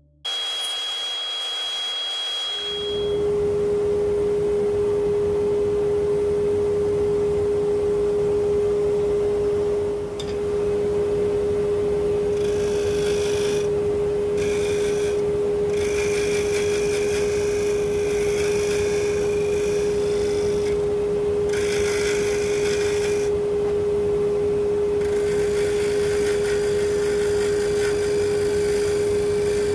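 Wood lathe running with a steady hum. From about twelve seconds in, a turning tool cuts the spinning live oak bowl blank in several passes, a scraping hiss that starts and stops.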